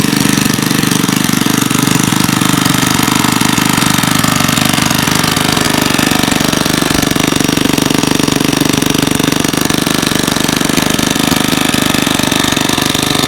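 Engine-driven water pump running steadily with a fast, even pulse, sucking water out of a flooded soakaway pit.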